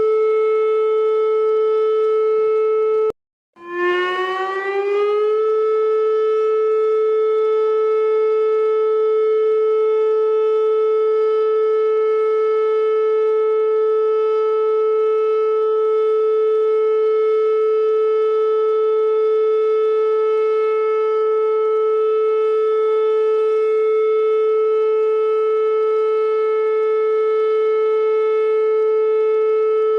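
Alarm siren holding one steady, loud tone. About three seconds in it cuts out for half a second, then returns lower and rises in pitch over a second or two back to the same steady tone.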